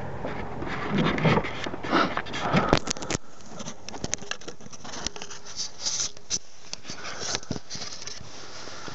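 Wind buffeting the microphone of a handlebar-mounted camera, dying away about three seconds in, followed by scattered sharp clicks and rubbing noises.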